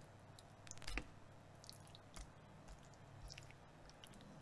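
Faint wet squishing and small clicks of raw chicken pieces being handled and set down on a wooden cutting board, with one louder knock about a second in.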